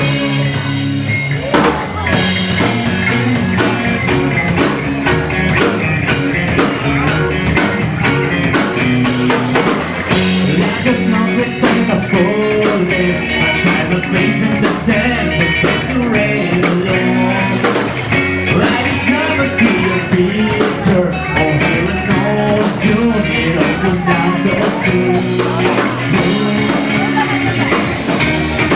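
A rock band playing live, with electric guitar, bass and a drum kit in a loud, steady psychedelic-rock passage.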